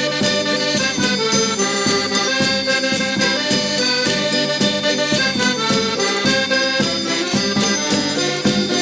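Traditional Madeiran folk dance music from a folk group, played with a steady beat and held instrumental notes.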